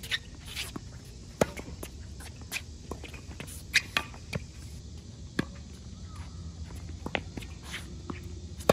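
Tennis rally on a hard court: sharp pops of the racket strings hitting the ball, some loud and close and some fainter, with ball bounces and footsteps in between, over a steady low hum. The loudest pop comes at the very end.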